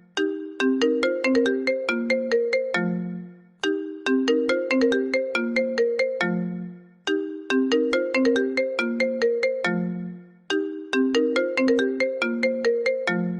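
iPhone ringtone playing on a loop: a short melody of quick struck notes with a bright, marimba-like tone, ending on a lower note that fades out. The phrase starts over about every three and a half seconds, four times here.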